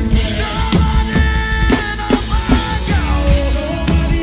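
Drum kit played hard in a live band: quick strikes on drums and cymbals over sustained melodic instruments.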